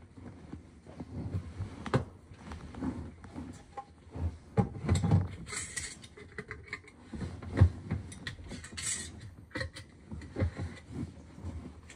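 Gloved hands handling glass mason jars and their metal screw lids: scattered knocks and clicks of glass and metal, one sharper knock about two-thirds through, and two brief rustles of plastic or paper.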